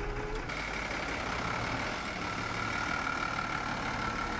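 Yellow city minibus running close by, engine humming, with a steady high whine over the noise. About half a second in, the sound changes abruptly from rising tones to this steady hum.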